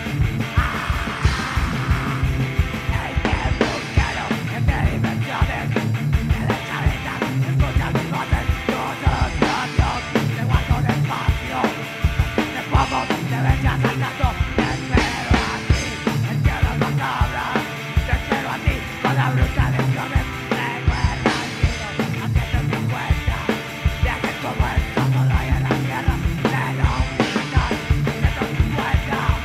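Heavy punk-rock band playing: electric guitar and drum kit, with a fast, steady kick-drum beat and crashing cymbals.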